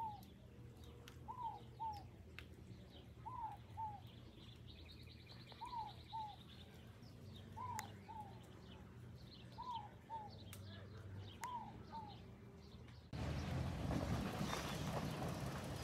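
A bird calling a short two-note phrase over and over, about every two seconds, with fainter chirps of other birds. About thirteen seconds in, a louder even noise sets in.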